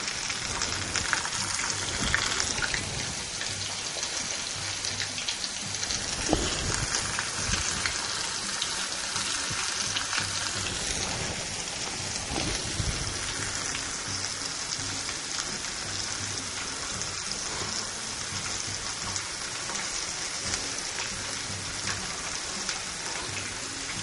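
Cornstarch-breaded chicken pieces deep-frying in oil at about 350°F: a steady sizzle full of small crackles, with a few louder pops.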